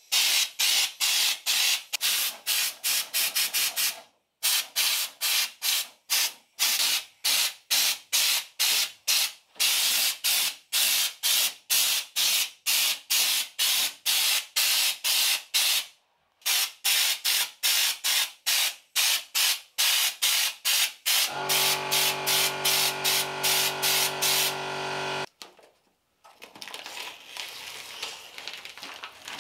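Air-powered Schutz gun spraying stone chip coating in rapid pulses of hiss, about three or four a second, with two short breaks. Near the end the spraying gives way to a steady hum for about four seconds, then the rustle and crinkle of masking paper and tape being peeled off.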